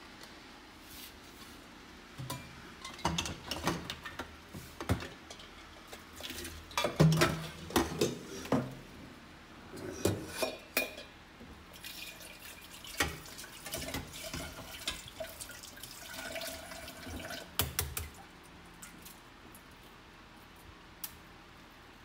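Water splashing and dripping with irregular clinks and knocks of a metal saucepan, busiest in the middle stretch, as a pan of hot boiled eggs is drained.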